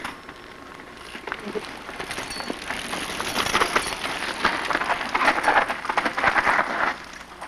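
Mountain bike tyres crunching and crackling over a rocky dirt trail close by, with many small clicks and rattles. The noise builds, is loudest past the middle and drops off about seven seconds in.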